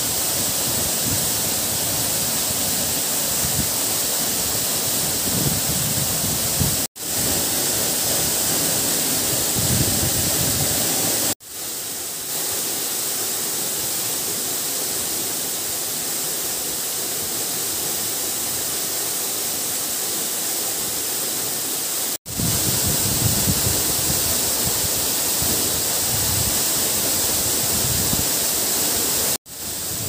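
Steady rushing of a waterfall and stream, an even hiss that cuts out briefly four times.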